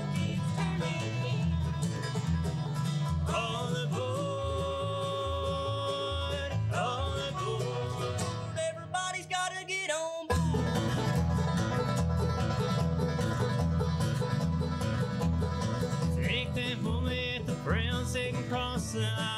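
Bluegrass band playing: banjo, mandolin and acoustic guitar over an upright bass keeping a steady beat. About nine seconds in, the bass drops out for a moment and the level dips, then the full band comes back in.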